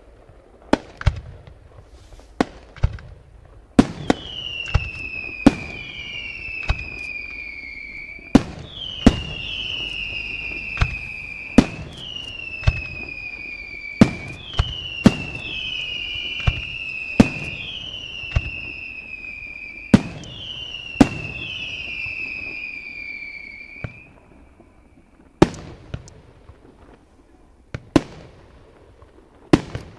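Aerial fireworks display: sharp shell bursts bang all through. From about four seconds in until about twenty-four seconds, a string of overlapping whistles sounds over them, each falling in pitch.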